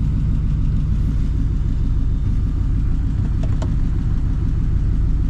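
1952 Ford's flathead V8 idling steadily, warmed up, with a faint click or two about three and a half seconds in.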